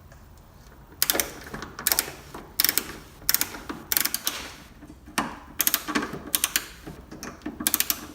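A 3/8-inch drive ratchet with a 10mm socket turning fasteners in short strokes, each stroke a brief burst of rapid pawl clicks, about one burst a second, as the headlamp is unbolted.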